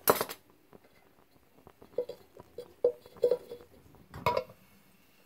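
Thin sheet-metal pieces of a homemade alcohol stove and its windscreen clinking as they are handled: a sharp clack at the start, then a string of light ringing clinks, and one more clink near the end.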